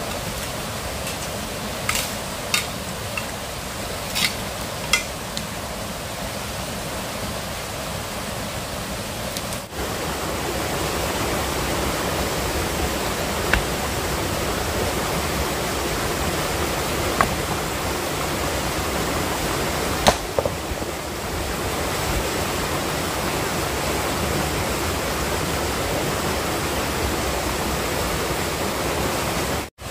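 A steady rushing noise with a few sharp clicks scattered through the first five seconds and a few more later. It dips briefly about ten seconds in and cuts out sharply just before the end.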